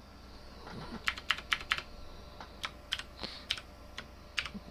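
Typing on a computer keyboard: short runs of quick keystrokes with pauses between.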